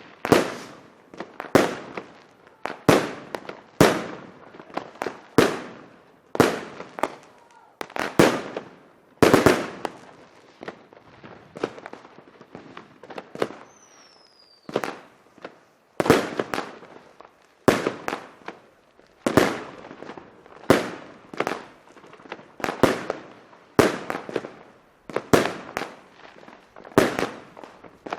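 Firecrackers going off one after another in sharp, loud bangs at irregular intervals, sometimes in quick pairs, with a sparser stretch of only a few bangs in the middle.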